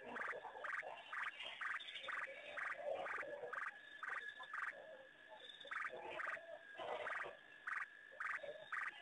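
Frogs calling: a regular run of short croaking calls, about two a second, pausing briefly near the middle, over a fainter background chorus.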